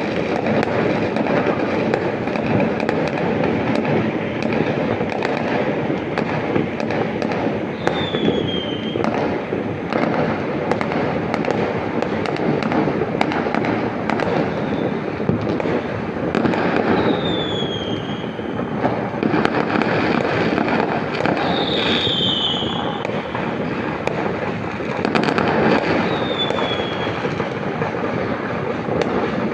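Many fireworks and firecrackers going off at once: a dense, continuous crackle of overlapping pops and bangs. A short falling whistle is heard about four times.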